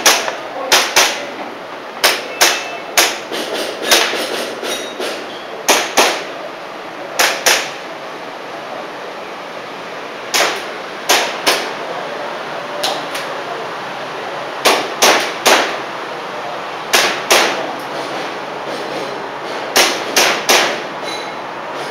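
Airsoft pistol shots fired in quick pairs and short strings, with pauses of a second or more between strings.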